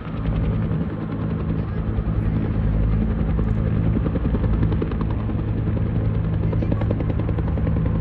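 An engine running steadily: a constant low hum with a fast, regular pulsing beat.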